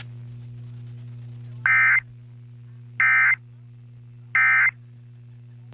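Emergency Alert System end-of-message code: three short bursts of SAME digital data tones, about a second and a third apart, marking the end of the alert. A low steady hum runs underneath.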